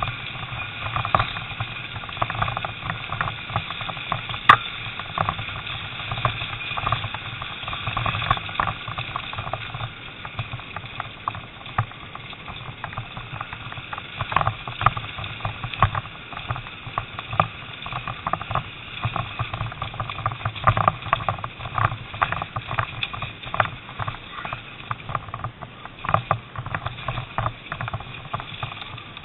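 Off-road motorcycle engine running steadily at low speed while riding over a rough, rocky track, with frequent irregular knocks and rattles from the bumps.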